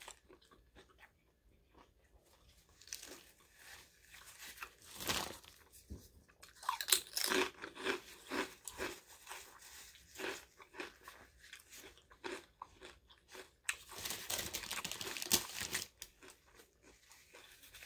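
Close-up chewing and crunching of potato chips, in bouts of crisp crunches with quieter chewing between them; the loudest crunching comes about halfway in and again shortly before the end.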